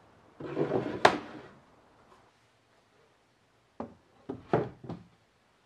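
Wooden parts being handled in a plywood sharpening stand: a scraping slide ending in a sharp wood knock about a second in, then three or four lighter knocks as the OSB top panel is set down into place near the end.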